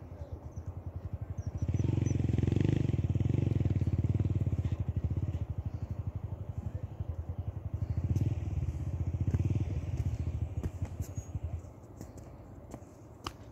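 A small engine chugging with a fast, even beat, louder for most of the stretch, then dying away about twelve seconds in.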